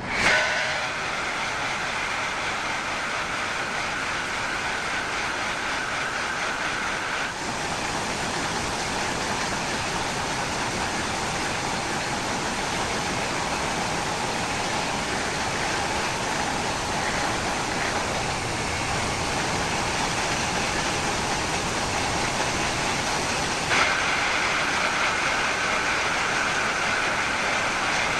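A workshop power tool switched on and running steadily with a loud motor noise and a high whine. The whine drops out about seven seconds in and comes back near the end.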